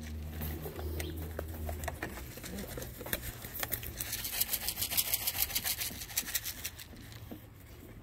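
A steady low engine-like hum that stops about two seconds in, followed by a run of dry crackling and rustling that fades near the end.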